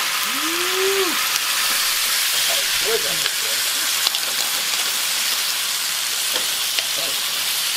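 Pork frying in a skillet on a gas burner: a steady sizzle as the pieces are pressed and turned by hand.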